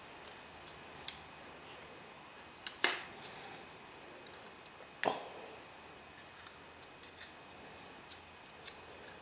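Small clicks and taps of tools and parts being handled while an iPhone 4 is taken apart, with two sharper taps about three and five seconds in.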